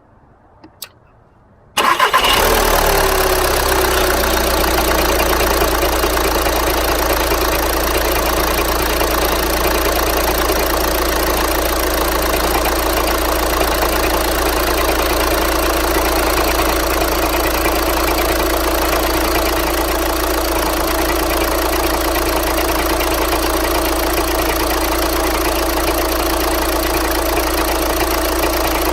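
A couple of faint clicks, then the 2012 Volkswagen Jetta's 2.0-litre four-cylinder TDI diesel engine catches almost at once about two seconds in and settles into a steady idle. It idles with a knock, which the owner links to the dual-mass flywheel.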